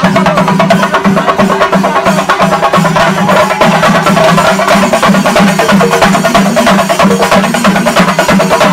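Loud festival procession music driven by fast, dense percussion, a rapid unbroken run of drum strokes.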